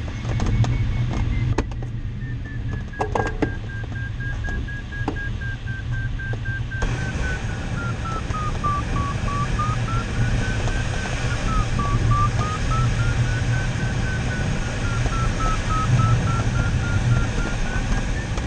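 Glider's audio variometer sounding one continuous tone that slides slowly up and down in pitch as the vertical speed changes, over the steady rush of air in the cockpit. A few light clicks sound in the first seconds, and the air rush grows louder about a third of the way in.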